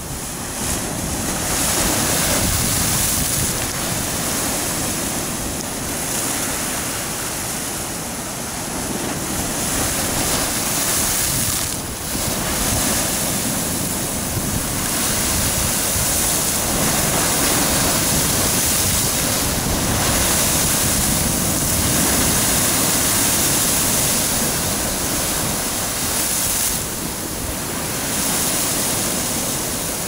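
Big ocean waves breaking and surging against the concrete blocks of a harbour breakwater. It is a continuous rushing of surf that swells and eases as each wave comes in, dipping briefly about twelve seconds in and again near the end.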